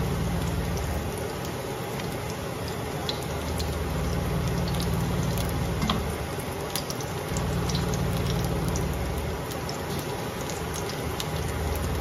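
Eggplant slices sizzling in olive oil in a frying pan: a steady hiss with many small crackles and clicks as the slices are turned with metal tongs. A low hum comes and goes underneath.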